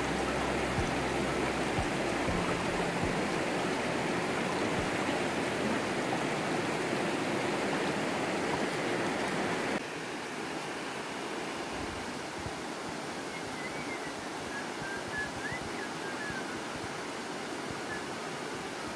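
Steady rush of a river flowing over rocks, dropping a little in level at a cut about ten seconds in.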